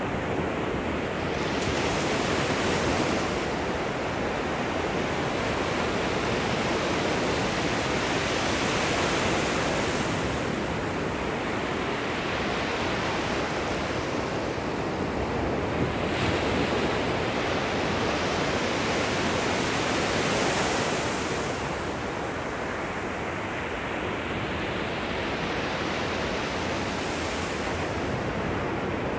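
Gentle ocean surf at the shoreline: small waves breaking and washing in, the hiss swelling and easing roughly every six seconds.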